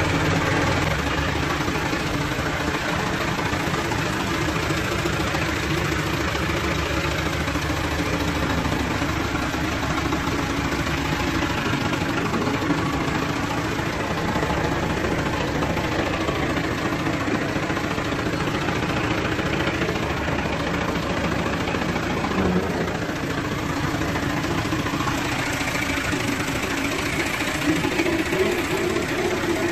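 Massey Ferguson 385 tractor's diesel engine running steadily while the tractor is reversed and steered at low speed. Its note shifts a little near the end.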